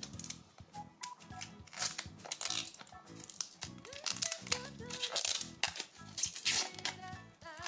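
Thin plastic protective wrap being peeled and torn off a wireless earbuds charging case, crinkling in quick irregular bursts, over background music.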